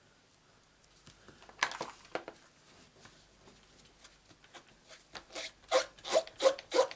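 A cloth rubbing over an inked stamp to wipe it clean, in quick strokes about two a second that grow louder near the end, after a single brisk rustle about a second and a half in.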